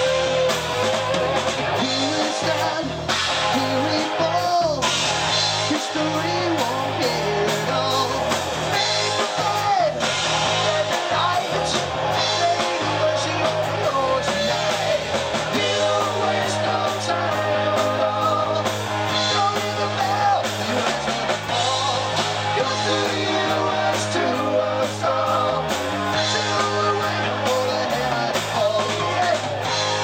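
Live rock band playing: distorted electric guitars and a drum kit, with a voice singing over them.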